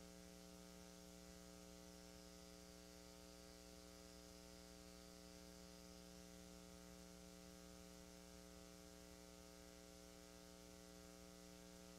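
Near silence: a steady electrical hum with faint hiss and a faint, slowly wavering high whine.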